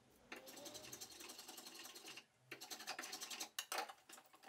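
Faint rasping strokes of a hand tool cutting the end grain of an oak handle's tenon, going back and forth with short pauses, as the tenon is trimmed to fit a hammerhead. A few sharp knocks come near the end.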